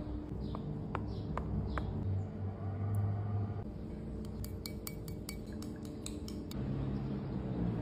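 A metal spoon clinking quickly against a small ceramic bowl as it beats an egg yolk with saffron, a run of sharp clinks lasting about two seconds from about four seconds in. Before that, a few light ticks as a fork pricks the dough in a metal baking tray.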